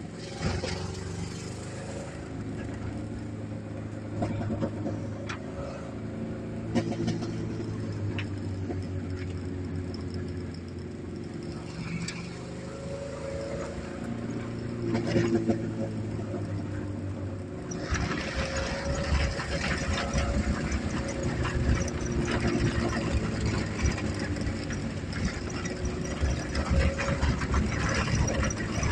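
Fiat Panda 750 engine running under way with a broken exhaust manifold, giving a loud, tank-like exhaust note, mixed with knocks and rattles from the car. About two-thirds of the way in, the rattling and engine noise get louder and busier.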